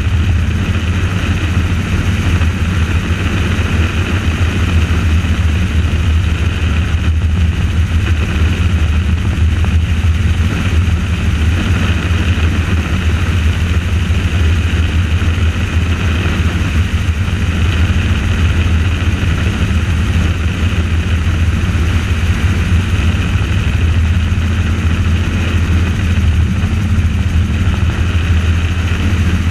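Helicopter in steady flight: its engine and rotors running at an even, loud drone, with a low hum beneath and a steady hiss above.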